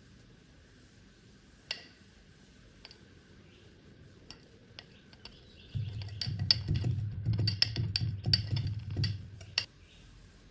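Kinetic sand being chopped. There is one sharp tap about two seconds in and a few light ticks. Past the middle comes a quick run of chopping strokes, dull thuds with crisp clicks, lasting about three and a half seconds, then one last sharp click.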